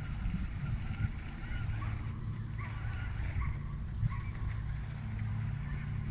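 Short bird calls over a low, steady hum, with the calls clustered in the middle few seconds.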